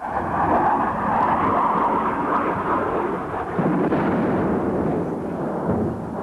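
Loud, continuous rumbling roar of war-zone noise, of the explosion and bombardment kind. It starts abruptly and grows deeper a little past halfway through.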